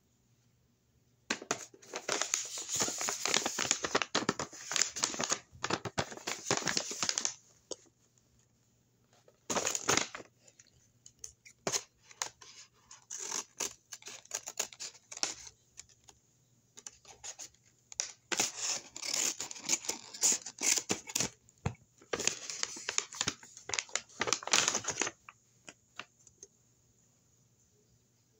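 Paper blind bag being cut open with scissors and torn, with crinkling and rustling of the paper in several spells of a few seconds each, then quiet near the end.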